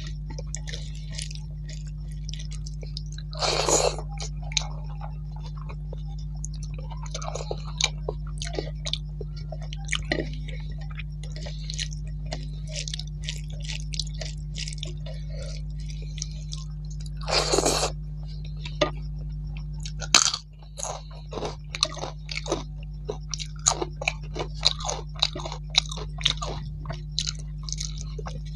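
A person chewing a mouthful of rice and vegetables eaten by hand, with many small wet mouth clicks and smacks. There are two louder crunchy bites, one a few seconds in and one past the middle, over a steady low hum.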